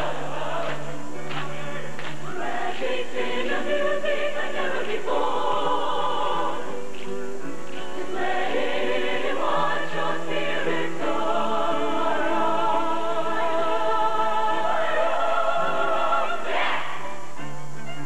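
Mixed show choir singing in harmony with vibrato, over a live band's sustained low accompaniment.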